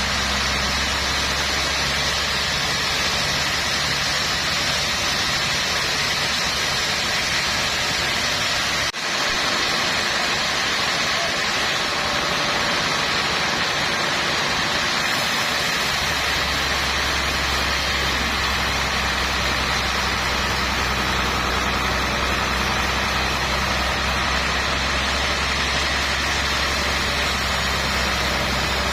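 Sawmill machinery running steadily, a deep engine-like hum under a broad hiss. About nine seconds in the sound briefly dips and the deep hum drops away, coming back about sixteen seconds in.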